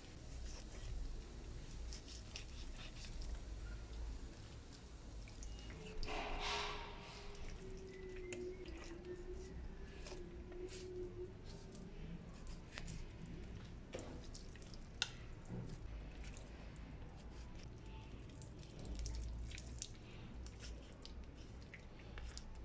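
Quiet, wet sounds of raw chicken being deboned by hand with a small knife: scattered small clicks and soft squishes of meat being worked off the wing bones. A faint held tone lasts about five seconds, starting about six seconds in.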